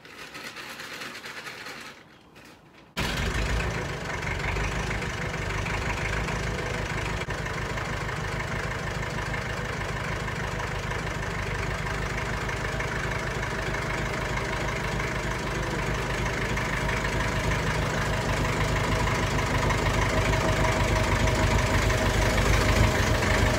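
Ferguson TEF-20's four-cylinder diesel engine being started: a second or two of cranking, then it catches suddenly about three seconds in and runs steadily as the tractor drives in, growing a little louder near the end.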